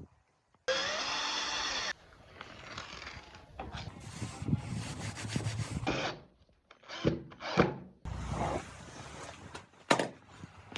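Tools working wood during window installation: rubbing and scraping strokes in short stretches that start and stop abruptly, a brief steady whine about a second in, and several sharp knocks in the second half.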